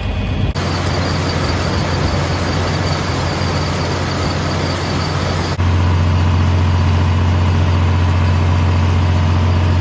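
Vintage John Deere tractor engine running steadily, driving a New Idea two-row corn picker through the PTO: a loud, constant low drone with mechanical clatter. The sound changes abruptly about half a second in and again about five and a half seconds in, where the drone gets louder.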